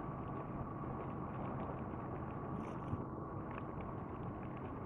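Honda VFR800Fi's V4 engine running steadily at low speed, under wind and road noise, with faint scattered ticks.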